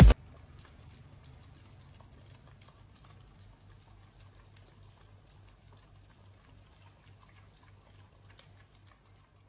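Two husky-type dogs licking a soft-serve ice cream cone: faint wet licking clicks, denser in the first few seconds, over a low hum.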